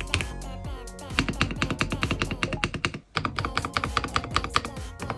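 Fast typing on an SPM PL87A mechanical keyboard with Sea Salt switches: a dense run of key clacks, pausing briefly about three seconds in. Background music plays under it.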